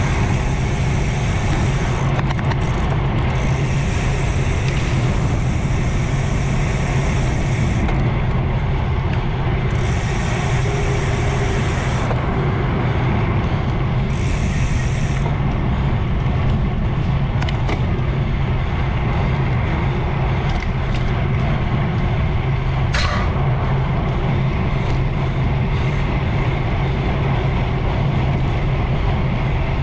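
Steady rush of wind and tyre roar from a road bicycle descending fast. A high hiss cuts in and out several times in the first half, and a brief rising squeal comes about three-quarters of the way in.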